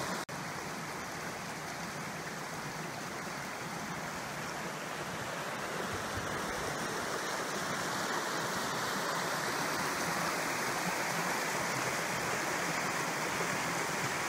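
Rocky woodland stream rushing over stones below a small waterfall: a steady, even rush of water.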